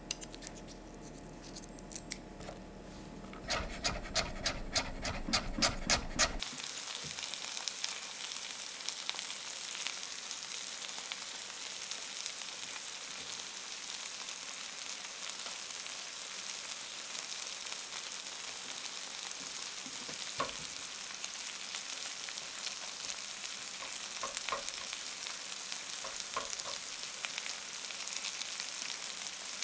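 A knife chopping garlic cloves on a wooden cutting board, a quick run of about ten knocks, three a second. About six seconds in it gives way to beef strips and halved baby potatoes sizzling steadily in oil in a frying pan, with a few light spatula knocks later on as chopped garlic is pushed around the pan.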